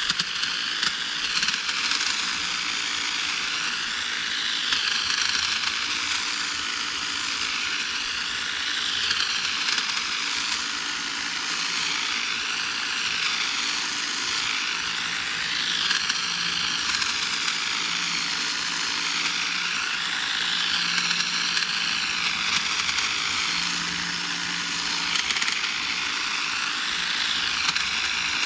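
EGO battery-powered pole hedge trimmer running and cutting through spirea branches. Its high whine swells and fades again every few seconds as it is worked along the bush.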